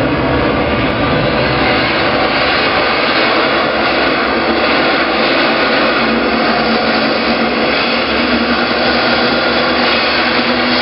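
Loud, steady rushing drone from a film soundtrack, jet-like roar with sustained tones running through it, accompanying an animated intro.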